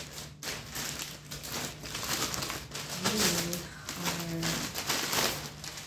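Black plastic mailer bag crinkling and rustling as it is handled. Two short hummed sounds from a woman's voice come about three and four seconds in.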